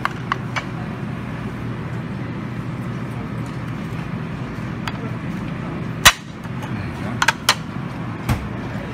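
Serving tongs and plates clacking at a buffet counter: a few sharp clicks near the start, one loud clack about six seconds in, then three more quicker clicks near the end, over a steady low background hum.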